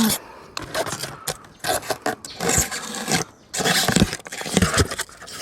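Irregular scraping and knocking from hands working with objects: a run of short scrapes and clicks in uneven bursts.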